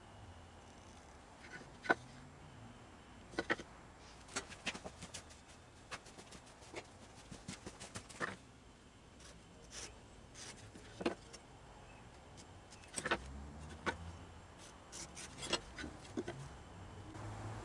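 Scattered light taps and knocks of a softwood board being handled, turned on edge and set down on a wooden workbench, with the scratch of a mechanical pencil drawing along its edges.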